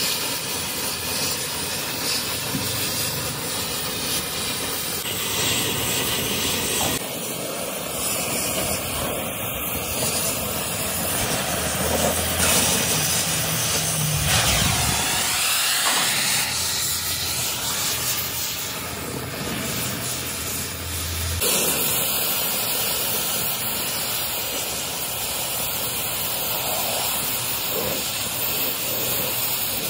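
Oxy-fuel cutting torch hissing steadily as its flame and cutting-oxygen jet burn through mild steel sheet along a circular cut. The hiss shifts in tone abruptly a few times.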